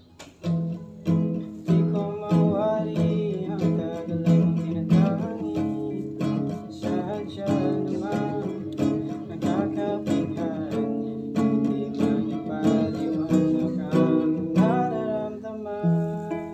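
Acoustic guitar strummed in a steady rhythm, with a voice singing a melody over it from about two seconds in until near the end.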